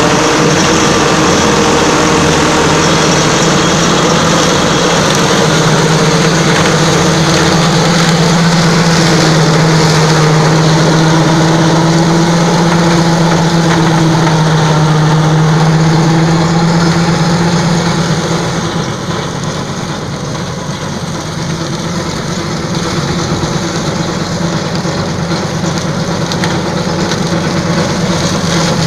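John Deere 720 tractor's diesel engine running steadily under load as it pulls a Happy Seeder no-till drill through crop stubble. The engine sound quietens for a few seconds about two-thirds of the way through, then builds again.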